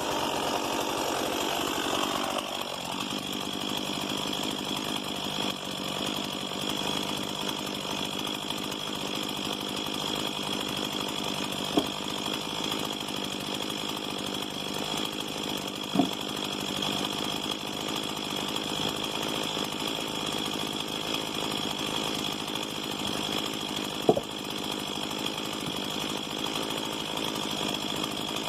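Stihl MS 170 two-stroke chainsaw engine running steadily. The sound shifts about two seconds in and then holds even. Three short, sharp knocks come through it, near the middle and toward the end.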